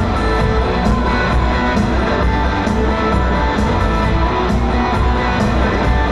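Pop band music led by guitar, with a steady drum beat.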